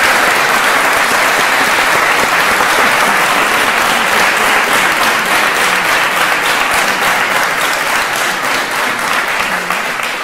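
Church audience applauding a choir, a dense steady clapping that takes on an even beat in the later seconds and eases slightly near the end.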